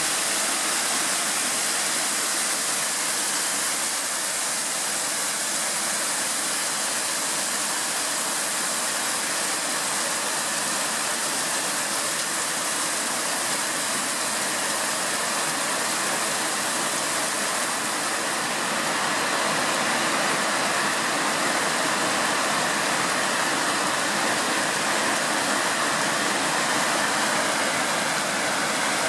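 Hail and heavy rain falling steadily in an even hiss, growing a little louder about two-thirds of the way through.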